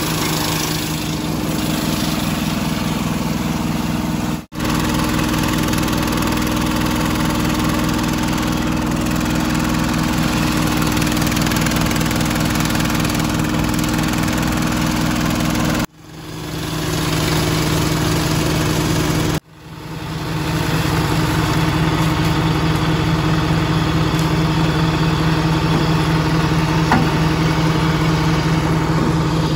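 Small engine of a belt-driven leaf and branch shredder running steadily under load while fresh rain tree branches and leaves are fed in and chopped. The sound breaks off abruptly three times and comes straight back.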